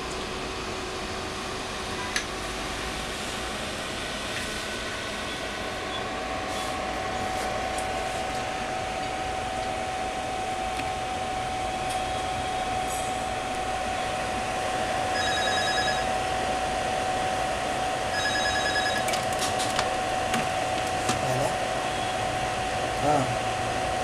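Steady whirring hum of electronic bench equipment on test, with a thin steady whine over it. Twice, about three seconds apart, comes a short burst of rapid electronic trilling beeps, and a few light clicks follow near the end.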